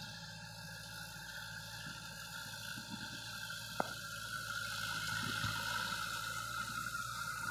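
Distant Kubota L5018 tractor's diesel engine running steadily under load while it pulls a rotary tiller through a dry rice field, a steady drone with a higher whine that gets louder over the last few seconds. A single sharp click about four seconds in.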